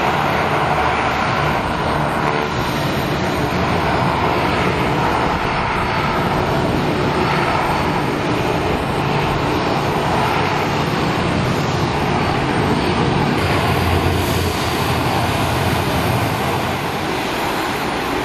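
Antonov An-12 turboprop engines running loud and steady, a dense drone with a low hum underneath.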